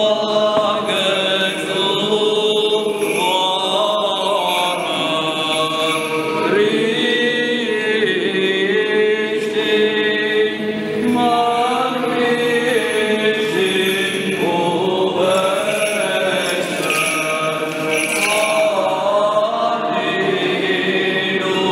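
Orthodox liturgical chant from a baptism service: voices sing a flowing, unbroken melody that rises and falls.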